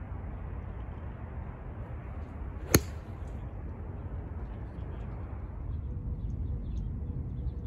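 A golf club strikes a ball off a tee mat with a single sharp crack a little under three seconds in, over a steady low background rumble.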